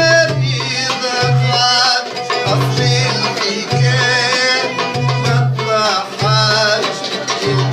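Band music: a wavering melody over a steady low pulse that repeats about once a second.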